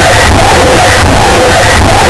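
Harsh noise music: a dense, distorted wall of noise that fills every pitch at near full loudness, steady and unbroken, with a churning texture inside it.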